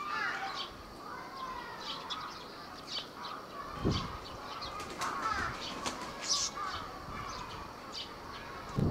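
Birds calling: a string of short chirps and downward-sliding calls, some high and brief, with a single low thump about four seconds in.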